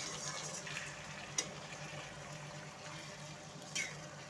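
Onions and freshly added chopped tomatoes frying with a watery sizzle in a metal kadai as they are stirred with a steel spoon. The spoon clinks sharply against the pan twice, about a second and a half in and near the end.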